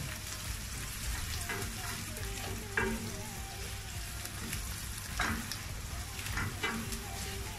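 Chopped onions, red capia peppers and garlic sizzling in oil and butter in a stainless steel pot while being stirred with a wooden spoon, with a few sharp scrapes of the spoon against the pot.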